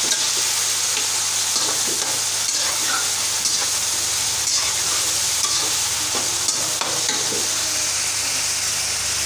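Mixed vegetables sizzling as they stir-fry in a metal karahi, turned with a slotted metal spatula that scrapes and clinks against the pan now and then.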